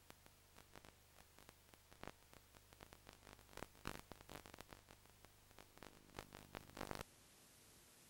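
Near silence from VHS tape playback: faint hum and hiss with scattered clicks and crackles that come thicker past the middle. At about seven seconds they cut off into a plain, steady tape hiss.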